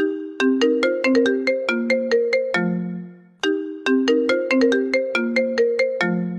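Mobile phone ringtone: a short melody of quick, bright notes played twice, restarting about every three seconds.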